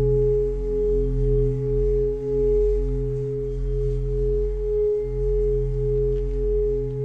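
A Tibetan singing bowl sung by rubbing a padded mallet around its rim: a steady ringing tone that swells and fades about twice a second, with a deep hum beneath.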